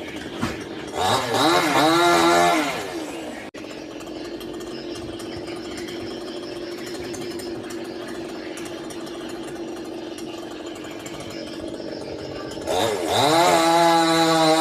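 Two-stroke chainsaw engine revving up and back down about a second in, then idling steadily; near the end it revs up to a high, steady full throttle.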